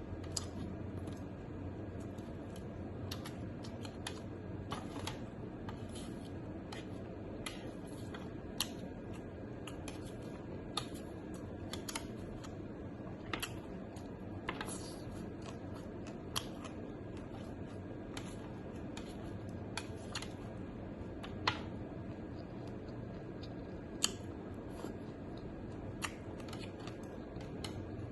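Eating sounds: irregular sharp clicks and light taps, a few a second, over a steady low hum.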